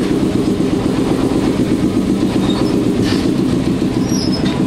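Engine of a small amusement-park ride train running steadily as the train moves.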